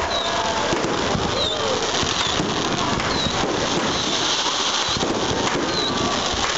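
Fireworks display going off without a break: a dense, steady crackle of many small pops and bangs.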